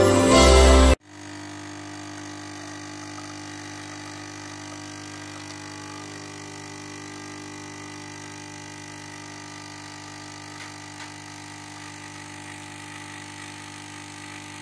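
Intro music cuts off about a second in, followed by a steady hum of a Dimobilli Expresso Multy D2 capsule espresso machine, whose pump runs while coffee pours into a cup.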